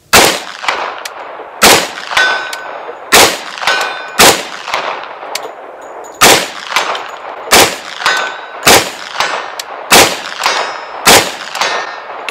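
Nine shots from a short 10mm carbine, fired at a steady pace about one to two seconds apart. After several shots a fainter metallic ping from steel targets about 100 yards off comes back roughly half a second later: the bullets hitting the steel.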